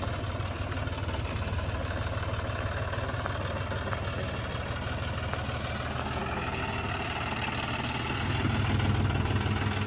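John Deere 5105 tractor's three-cylinder diesel engine running steadily as it pulls a loaded manure trolley at low speed, getting louder about eight seconds in.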